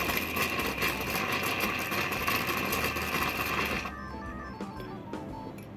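Dr.Coffee automatic coffee machine's milk frother hissing and sputtering as steam and air whip milk into a cup, stopping about four seconds in. The frother's air adjustment is opened too far, so too much air and steam get in and the milk barely froths. After it stops, faint music.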